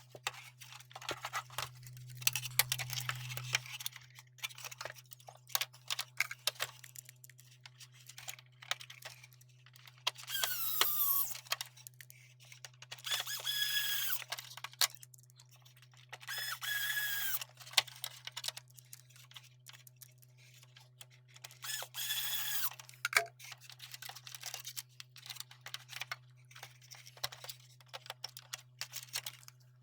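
Clicks, taps and rattles of small parts and the electronic keyboard's plastic casing being handled during reassembly. Four squeaky scraping strokes of about a second each come through it, roughly every three seconds from about ten seconds in.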